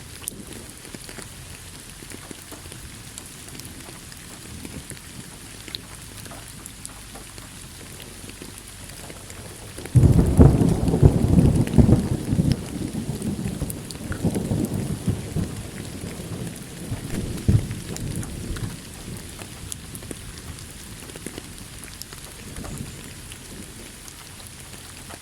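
Steady rainfall with a thunderclap that breaks in sharply about ten seconds in. The thunder rumbles low and loud with several further peaks, then fades back under the rain over the next several seconds.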